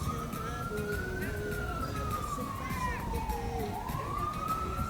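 Emergency vehicle siren in a slow wail, its pitch climbing for about a second, falling for over two, then climbing again, over a low background rumble.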